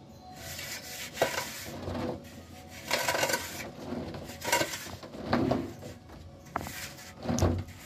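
Metal straightedge scraped back and forth across fresh cement plaster on a ceiling to level it, making a series of rough rasping swishes about one a second, with an occasional sharp click.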